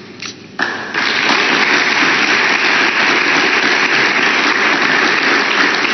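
Audience applauding steadily, breaking in about half a second in and swelling to full strength a moment later.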